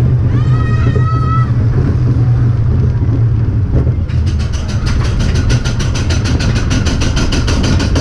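Wacky Worm family roller coaster car running on its steel track with a steady low rumble, and a brief high-pitched voice near the start. About halfway through, a rapid, even clatter of clicks begins as the car climbs the lift hill: the anti-rollback ratchet catching.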